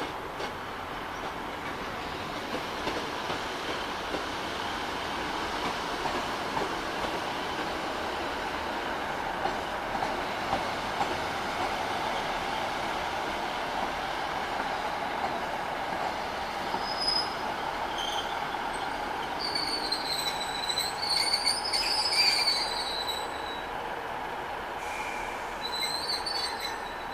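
Class 156 'Super Sprinter' diesel multiple unit rolling into a station platform with a steady rumble. As it slows to a stop in the last third, its wheels give high-pitched squeals, loudest a few seconds before the end.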